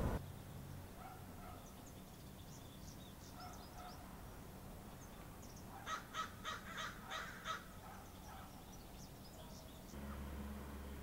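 Birds calling faintly, with a quick run of about seven louder calls around six seconds in. A low steady rumble sets in near the end.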